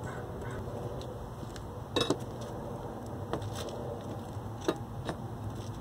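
Bricks being set in place against the front of a small forge: several sharp clinks and knocks of hard brick on brick and metal. The loudest is a double clink about two seconds in.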